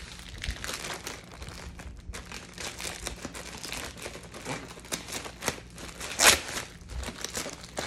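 Thin plastic poly mailer bag crinkling and rustling as it is handled and its plastic pulled and stretched by hand, with a loud crackle about six seconds in.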